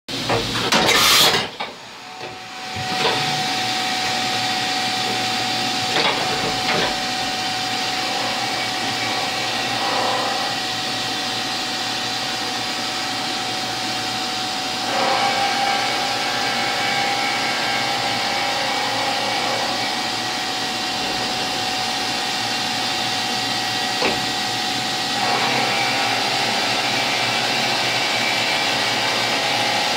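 CNC vertical machining center milling the end of a fixture body held in a vise: a steady spindle whine with two held tones over a cutting hiss, taking slow passes. A brief loud noise comes about a second in, there are a couple of light clicks, and the cutting sound steps up a little about halfway and again near the end.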